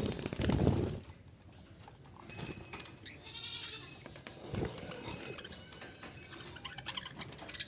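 Pet budgerigars chirping and warbling in short, high, scattered calls. A brief low rumble in the first second is the loudest sound.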